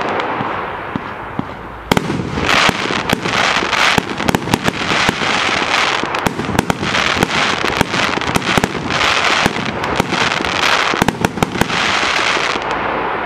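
Multi-shot firework cake firing shot after shot, each bursting into crackling glitter stars. There are sharp reports over a continuous crackle, a short lull about a second in, then a dense run of bursts that dies away at the end.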